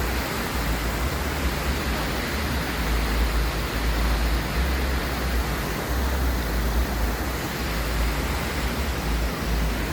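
Steady rushing of water, an even hiss with a low rumble underneath that never lets up.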